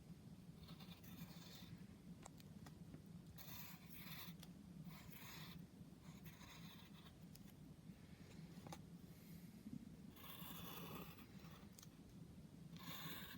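Faint scratching of a drawing tool on paper, in several short strokes of under a second each, over a steady low hum.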